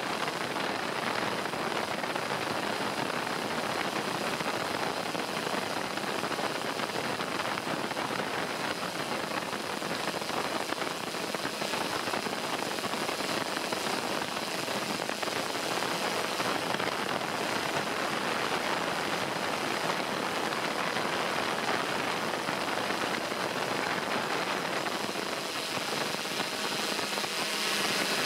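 DJI S1000 octocopter in flight, heard from the camera slung beneath it: a steady, even rushing hiss of rotor wash over the microphone, with a faint high steady whine.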